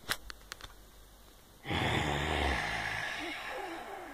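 A few soft clicks, then a long breathy exhale close to the microphone, like a sigh, starting about 1.7 seconds in. It has a short low rumble at its start and fades out over about two seconds.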